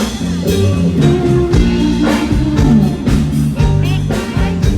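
Live band playing during a sound check: electric guitar over held bass notes and a drum kit.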